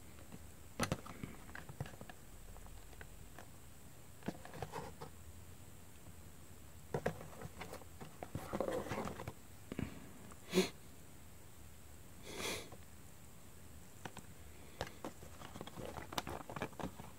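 Faint scattered taps and rustles of hands turning and gripping a glossy cardboard toy box, with one sharper click past the middle and a short breath a little after it.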